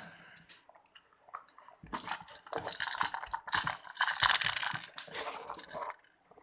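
Dense, irregular crackling and clicking of small hard objects being handled, starting about two seconds in and dying away near the end.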